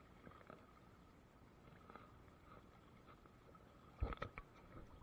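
Faint water splashing around legs wading waist-deep through a river, with a quick cluster of sharp knocks about four seconds in.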